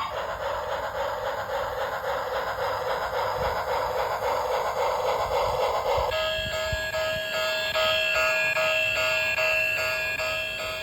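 Battery-operated toy train's electronic sound effects: a steady hissing chug for about six seconds, then a repeating electronic beeping tone, about two beeps a second, until the end.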